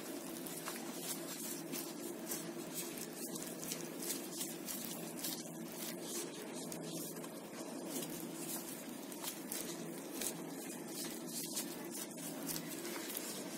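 Faint rustling and soft ticks of plastic-gloved hands pressing raw minced-meat filling into a round of bread, over a steady low hum.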